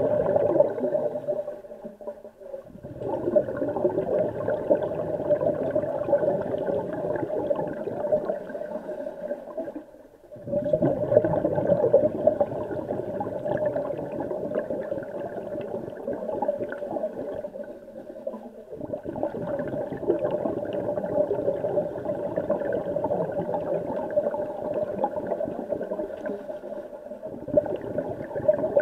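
Underwater sound in a swimming pool: a steady crackling, bubbling rush from scuba divers' breathing through their regulators, dropping away briefly about every eight seconds.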